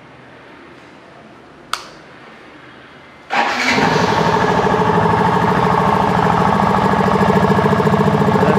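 Yamaha FZ's single-cylinder engine starting about three seconds in and settling into a steady, evenly pulsing idle, its exhaust note altered by a perfume-bottle cap fixed into the silencer end cap with M-seal and a modified air filter, meant to give a KTM Duke-like beat. A sharp click comes shortly before it starts.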